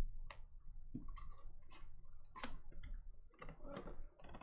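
Scattered light clicks and taps of hands handling small items on a tabletop, several sharp ticks a few tenths of a second apart.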